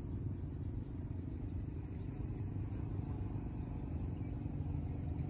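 Steady low rumble with a thin, steady high-pitched tone above it.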